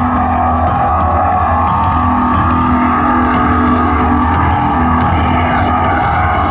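Loud amplified live music holding a steady droning passage of sustained low and mid tones, with no clear beat or words.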